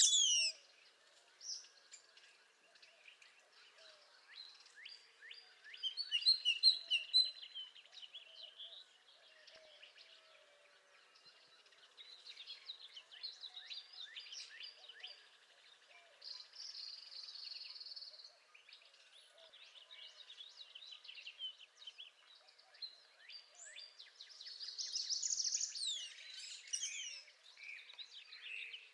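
Songbirds singing in separate phrases, including northern parula buzzy trills, with the loudest phrases about a quarter of the way in and near the end. Faint low notes sound underneath throughout.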